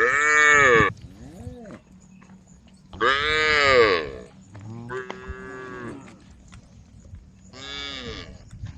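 Cows mooing, several separate calls, each rising and then falling in pitch. The loudest calls come at the start and about three seconds in, with softer moos between them and another near the end.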